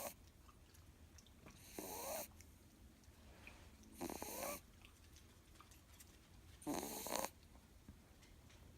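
Miniature schnauzer puppy snoring in its sleep: three short snores about two and a half seconds apart, each rising in pitch.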